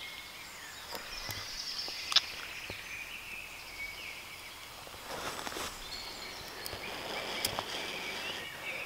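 Quiet woodland with birds singing, a sharp knock about two seconds in as a ferro rod and striker are set down on a tree stump, then soft puffs of breath blown onto a smouldering ember in a cramp ball fungus.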